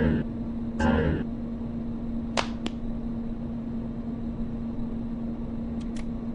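Steady low hum. A brief loud burst of sound comes about a second in, and two sharp clicks follow close together a little past two seconds, with two fainter clicks near the end.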